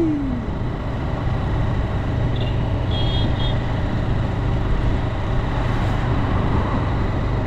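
Motorcycle engine running steadily under way, mixed with wind and road noise.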